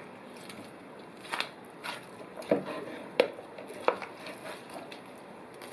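Food-preparation sounds: five short, sharp knocks or cuts, irregularly spaced about half a second to a second apart, starting about a second in.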